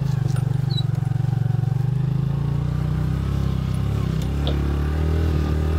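Motorcycle engine running steadily as the bike is ridden along a dirt track, its note dropping lower about four and a half seconds in.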